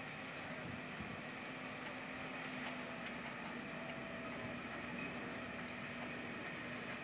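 Diesel engines of JCB and LiuGong crawler excavators running steadily as they dig, with a low steady hum that sets in about a second and a half in.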